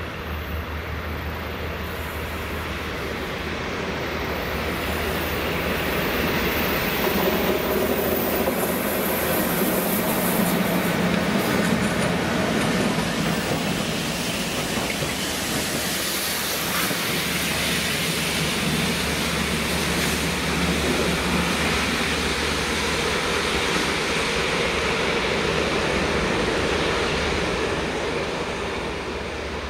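Colas Rail Freight class 56 diesel locomotives hauling a railhead treatment train past at low speed: a steady low engine drone under the rumble of wheels and tank wagons on the track, loudest from about six to thirteen seconds in.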